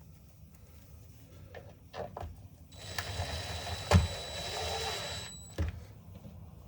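DeWalt cordless drill running for about two and a half seconds, starting a screw into a reciprocating saw's housing, with a steady motor whine. A few sharp knocks of the tool being handled fall before, during and after the run.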